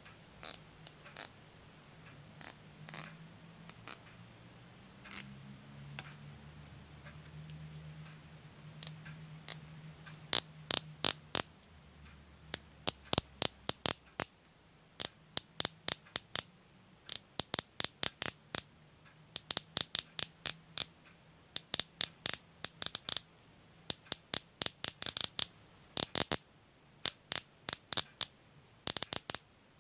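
Cable tie being pulled through its ratchet head: sharp ratcheting clicks as the teeth pass the pawl. There are sparse single clicks at first, then from about ten seconds in, quick runs of several clicks in a row.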